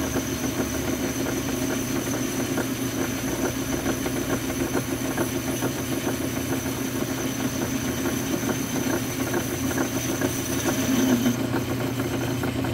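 Metal lathe running steadily while its cutting tool takes a light skim cut across a spinning metal cap, curling off chips to true up the water-jet-cut blank. A thin high whine runs over the motor hum and stops about eleven seconds in.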